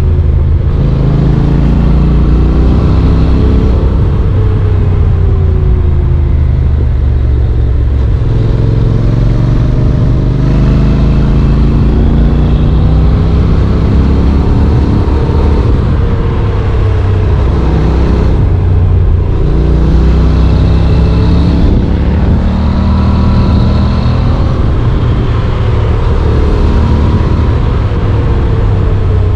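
Honda NC750X motorcycle's parallel-twin engine running under way, its note rising and falling again and again with throttle and gear changes.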